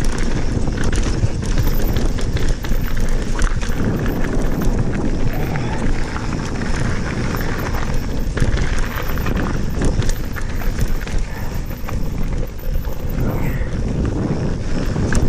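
Mountain bike riding fast down a loose gravel and small-stone trail: tyres crunching over the gravel and the bike rattling over a steady stream of small bumps, under a loud, constant rush of wind and rolling noise.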